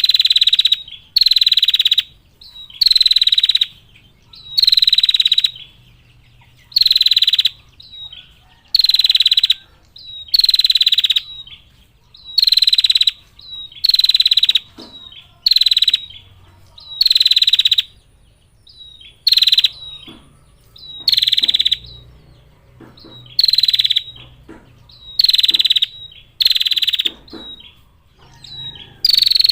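Female prinia (prenjak) calling over and over in short, high rattling trills, one about every second and a half to two seconds.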